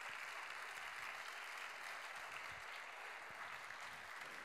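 Faint audience applause, an even patter of clapping that eases off slightly near the end.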